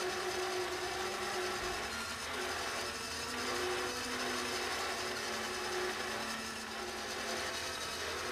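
Hydraulic bandsaw running steadily, its blade cutting through a large rusty steel pipe, with a low tone that comes and goes every second or two.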